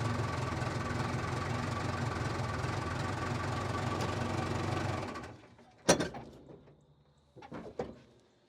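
A power tool runs steadily with a fast, rattling rhythm for about five seconds, then winds down. About a second later there is one sharp metallic bang, followed by a few lighter knocks.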